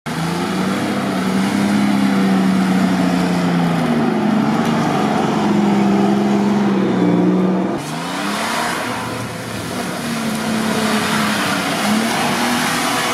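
Off-road 4x4 SUV engines revving under load through deep mud, the engine note rising and falling with the throttle. About eight seconds in there is a sudden change to another vehicle's engine, which revs up and keeps working.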